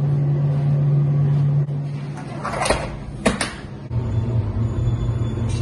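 Commercial rack oven humming steadily, with two sharp metallic clunks about two and a half and three and a quarter seconds in as the oven door is shut. After that a lower steady hum.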